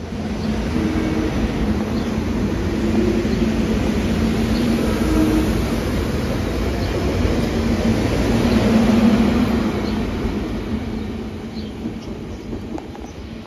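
SEPTA Silverliner IV electric multiple-unit train running past the platform and pulling away: a steady rumble of wheels on rail with a low electric hum. It is loudest about nine seconds in, then fades as the train draws off, with a few clicks over the rails near the end.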